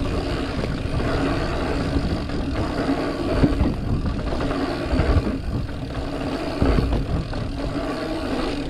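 Mountain bike rolling along a dirt trail: a steady rumble of tyres and wind on the microphone, with scattered knocks as the bike rides over bumps, over a faint steady hum.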